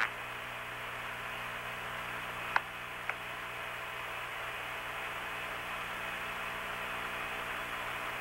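Open air-to-ground radio channel between transmissions: steady hiss and hum, with two short clicks about half a second apart near the middle.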